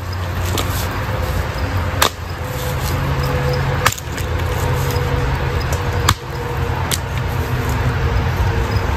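Short axe chopping into a log, four sharp strikes a second or two apart, knocking chunks out along the grain. A steady low hum runs underneath.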